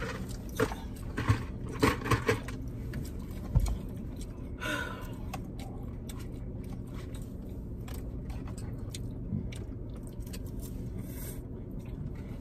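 Chewing and mouth sounds of someone eating chili cheese fries, with a few short sharp clicks in the first two seconds and a low thump about three and a half seconds in.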